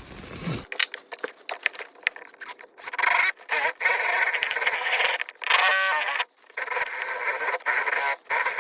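Power drill boring a hole through wooden wall framing. After some scrapes and clicks, the motor whines in spurts of about a second or two with short stops between. It is hard going with the bit in use.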